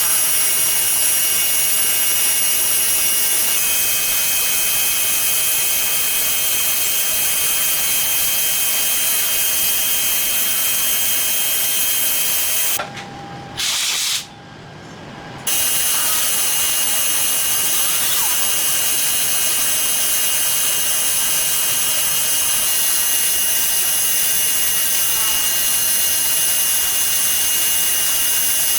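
A machine tool running steadily on steel: an even hiss with a few steady high whines. The sound cuts out abruptly twice near the middle.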